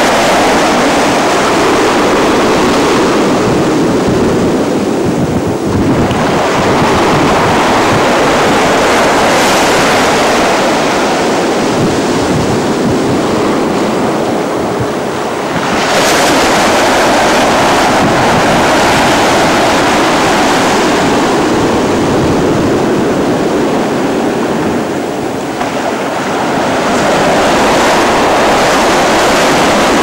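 Surf breaking on a sandy beach, waves washing up and drawing back. The rush of water swells and eases about every ten seconds.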